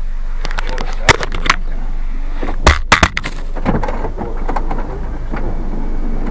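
A quick run of sharp clicks about a second in, then a few loud knocks near the middle and lighter clicking after, over a steady low hum.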